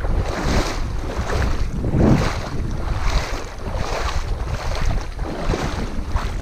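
Wind buffeting the microphone over open water: a steady rushing with a heavy low rumble, swelling and easing about once a second.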